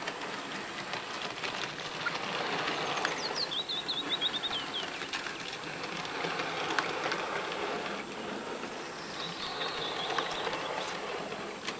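Piko E69 H0-scale model electric locomotive with rubber-band drive running along the track, a steady whirring rattle with many small clicks. A bird chirps a few times about three seconds in and again near the end.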